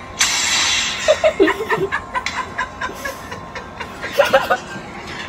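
Stifled snickers and chuckles from children trying not to laugh with mouths full of water, with a short burst of loud noise near the start and music faintly underneath.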